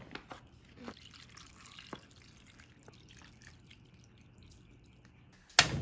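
Broth poured from a plastic bottle into a pan of raw vegetables and beef, with a few light clicks and drips in the first two seconds, then a faint steady pour. Near the end comes one sudden loud burst.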